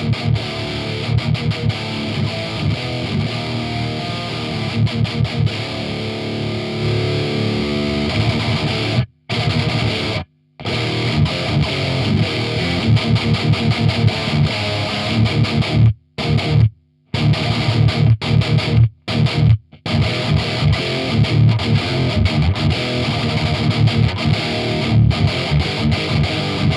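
Heavily distorted electric guitar with a Bill Lawrence pickup playing metal riffs through a Randall RG100HT head and 2x12 cabinet, the mids pushed up by an MXR six-band EQ and a Furman PQ4. Several times it stops dead into silence as the noise gate shuts between phrases.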